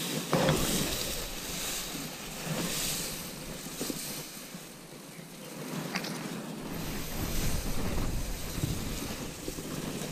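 Wind buffeting the microphone in gusts over a steady outdoor hiss, with a sharp knock about half a second in and a thin click near six seconds.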